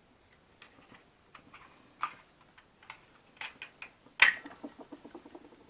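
Small plastic and metal tape-measure parts clicking and knocking as they are handled. A sharp snap about four seconds in is followed by a quick rattle of ticks.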